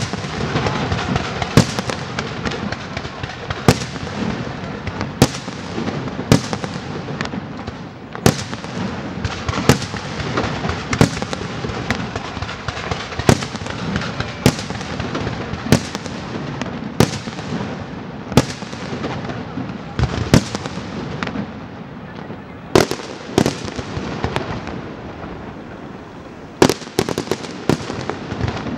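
Professional aerial fireworks display: a continuous dense crackle and hiss of shells and stars, with sharp shell bangs about once a second. The bangs come in a quick cluster near the end.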